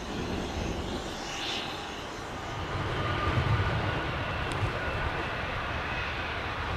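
Airbus A220-300's Pratt & Whitney PW1500G geared turbofan engines running as it taxis: a steady rumble and hiss that swells about three seconds in.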